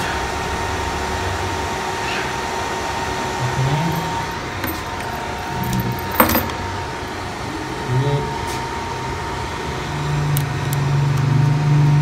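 Steady whirring of the cooling fan on a homemade solar battery charger, with a faint steady high tone over it. A sharp click about six seconds in as the equipment is handled.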